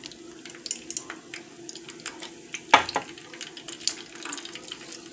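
Breaded chicken deep-frying in hot oil in a pot: a continuous sizzle with frequent crackles and pops, and metal tongs knocking against the pot, loudest a little under three seconds in.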